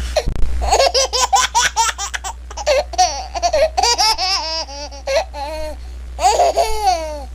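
A baby laughing in quick runs of high-pitched giggles, over a steady low hum.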